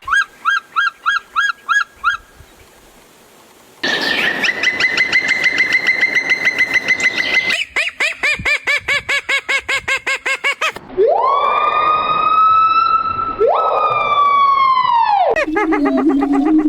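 A car-alarm-style cycle of siren tones. First come quick rising chirps for about two seconds, then a short pause, a fast warbling trill, rapid pulsing beeps, two long wails that rise and fall, and another warble near the end.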